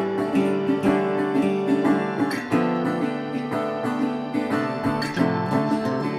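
Instrumental background music led by strummed acoustic guitar.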